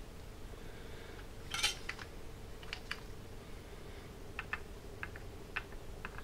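Small metallic clicks and taps as an electric desoldering gun is worked against a circuit board: a louder clatter about one and a half seconds in, then scattered single and paired clicks, over a faint steady hum.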